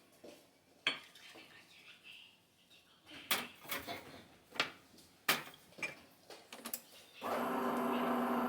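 A run of sharp clinks of cutlery and crockery being handled. About seven seconds in, a home coffee machine starts up with a steady, even hum.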